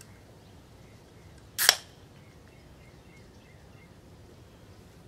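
Aluminium Budweiser beer can's pull tab cracked open: a single sharp, short pop with a brief fizz about a second and a half in.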